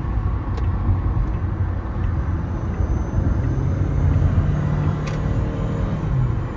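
Toyota Camry driving at highway speed, heard from inside the cabin: a steady low rumble of engine and road noise, with the engine hum growing stronger about halfway through.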